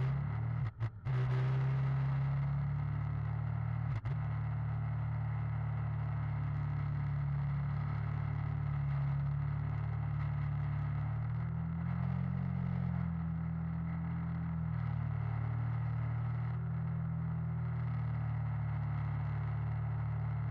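Motorcycle engine running steadily at road speed, its low drone shifting pitch slightly a couple of times as the throttle changes, mixed with wind and road noise on the handlebar-mounted microphone.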